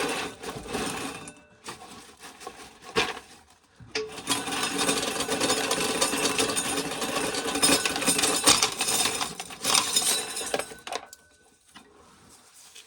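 Shelled dry corn kernels rattling in a full pail as it is shaken to settle them and make room for more. The rattle comes in two bouts: a short one at the start and a longer, steady one from about four seconds in until near ten and a half seconds.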